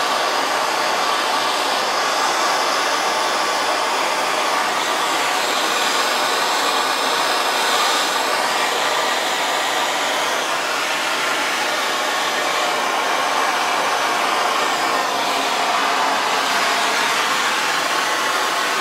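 Handheld soldering torch burning with a steady hiss, heating a copper pipe joint while solder is run into it.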